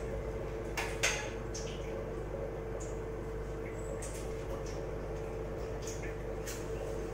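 Small metal puja items (a brass lamp and vessels) handled on a shrine ledge while the lamp is being lit: scattered light clinks and clicks, the loudest about a second in, over a steady hum.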